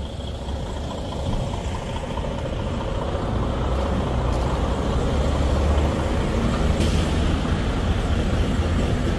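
Semi truck's diesel engine running at low speed as a Freightliner Cascadia tractor-trailer creeps through a tight turn, getting louder over the first few seconds as it draws near, then holding steady.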